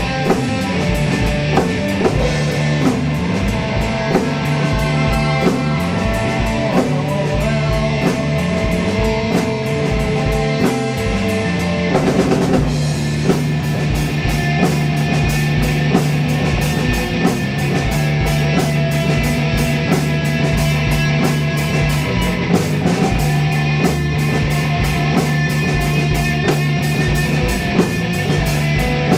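Drum kit and electric guitar playing a loud rock jam over a held low bass line. About twelve seconds in, the drums change to a steady run of cymbal strokes.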